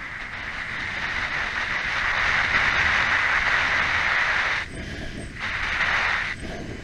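Kawasaki Ninja parallel-twin engine pulling hard with wind rush on the bike-mounted camera, building over the first couple of seconds, then dropping away briefly twice in the second half.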